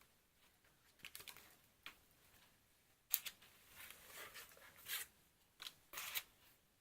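Packaging being handled and opened: quiet scattered rustles and clicks of cardboard and plastic, busiest in the second half.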